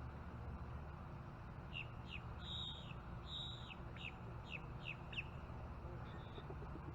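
A bird singing one phrase: a few quick down-slurred whistled notes, two longer held notes, then four more quick down-slurred notes, over a steady low background noise.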